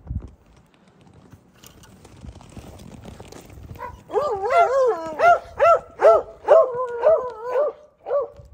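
Dog yipping and whining in a quick run of short, high, wavering yelps, starting about four seconds in. A dull thump comes right at the start.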